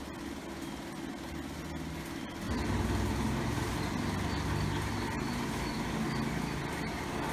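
Steady low background rumble, like distant traffic, growing louder about two and a half seconds in and then holding even.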